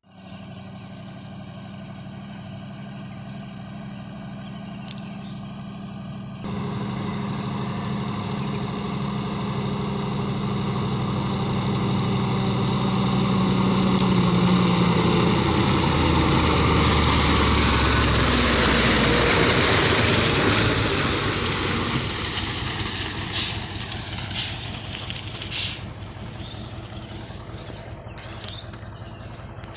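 Komatsu excavator's diesel engine running. It grows louder and works harder through the middle, then eases off, with a few sharp knocks near the end.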